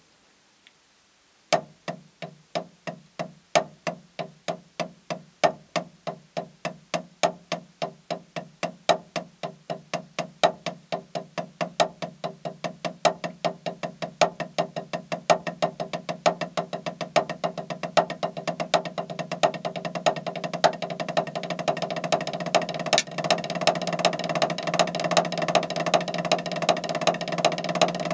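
Paradiddlediddle rudiment (right, left, right, right, left, left) played with drumsticks on a practice pad. It starts about a second and a half in at a slow, even pace and speeds up steadily until the strokes run together into a fast, continuous roll.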